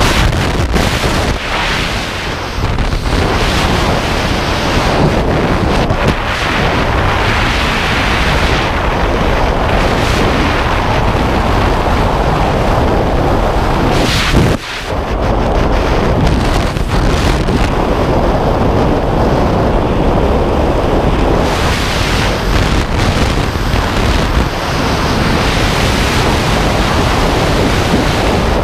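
Freefall airflow buffeting the camera's microphone during a tandem skydive: a loud, steady rushing of wind that dips briefly about halfway through.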